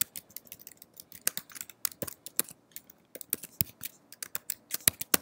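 Typing on a computer keyboard: a quick, irregular run of key clicks, with a pause of about half a second a little past the middle.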